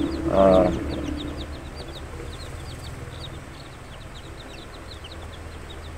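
A brood of young chicks peeping constantly, many short, slightly falling high peeps overlapping. A brief voice sounds about half a second in, over a steady low hum.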